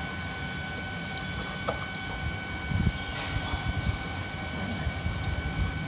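Cooked dal being mashed and churned with a hand masher in a small pot: irregular soft, wet thuds and stirring strokes, over a steady background hum.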